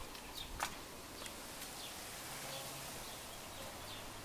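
Faint outdoor background with scattered short, high bird chirps.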